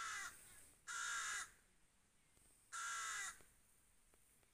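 A crow cawing three times, harsh calls each about half a second long that fall slightly in pitch.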